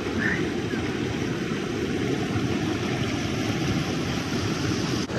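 Shallow creek water rushing and churning over rocks close to the microphone: a steady, deep rush with no letup.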